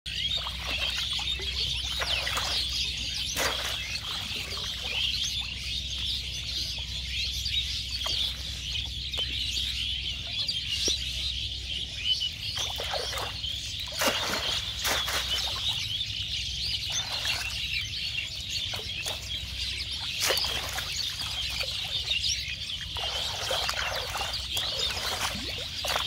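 A dense chorus of many small birds chirping continuously, with a few sudden water splashes as a mesh ring-net trap is handled in shallow floodwater.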